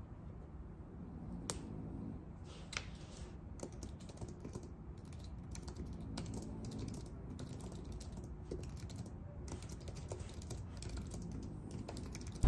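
Typing on a low-profile computer keyboard: irregular runs of soft key clicks with short pauses between them.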